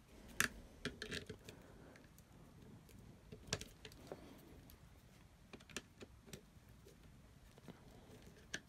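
Faint, scattered metallic clicks and taps, about a dozen, as a screwdriver and pliers tighten the bolts on the terminal tabs of 12 V UPS battery cells.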